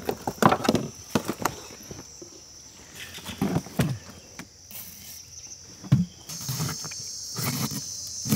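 Insects chirring steadily in a high buzz, louder from about six seconds in, under irregular knocks and wet thuds of a large tuna being handled and cut with a knife on a wooden board.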